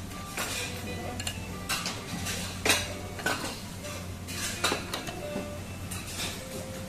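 Scattered clinks and knocks of plates, cups and utensils, about half a dozen sharp ones at uneven intervals, over a steady low hum.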